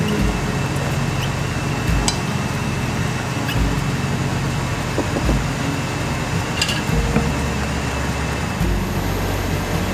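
A small saucepan of shiitake mushrooms reducing in soy sauce, sugar and mushroom-soaking liquid, bubbling and sizzling steadily, with a couple of light clicks. Soft background music runs underneath.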